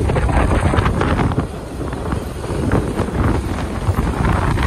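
Wind buffeting the microphone on a moving motorcycle, with the bike's engine running underneath: a loud, rough rumble.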